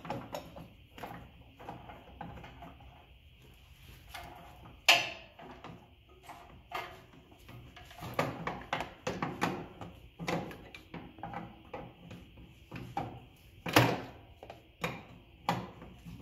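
A large wrench working loose a big nut on a golf cart's contact board: irregular metal clicks and clanks as the wrench is fitted and turned, with two sharp, loud clanks, one about five seconds in and one late on.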